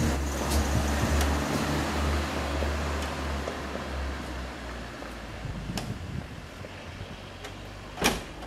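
Night-time outdoor hum with a low rumble that fades away over the first five seconds, then a single sharp click from the front door of the house about eight seconds in.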